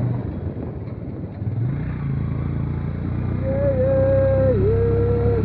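Motorcycle engine running while riding, picking up revs a little after a second in. In the second half a loud held tone, wavering and dipping briefly, sounds over the engine.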